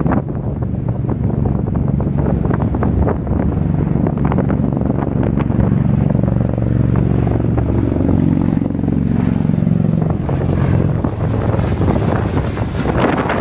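Bell Boeing V-22 Osprey tiltrotor flying low and approaching overhead: its proprotors and turboshaft engines give a loud, deep drone of several low pitches that dips slightly midway. Wind buffets the microphone throughout.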